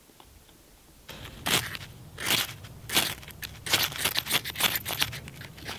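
Ferro rod struck with a steel striker over birch bark tinder: a run of sharp rasping scrapes starting about a second in, three spaced strokes and then quicker ones, as someone tries to throw sparks into the bark.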